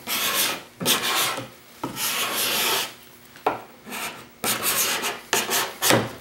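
A sharpened putty knife used as a hand scraper, shaving a curly maple board in about seven rasping push strokes, each under a second, some starting with a sharp click as the edge bites. The hooked edge is taking an aggressive cut and lifting curled shavings.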